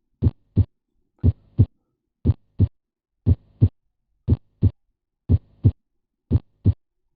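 Recorded normal heart sounds heard through a stethoscope: a steady lub-dub, each beat a single first sound followed about a third of a second later by a single, unsplit second sound. There are seven beats at about one a second.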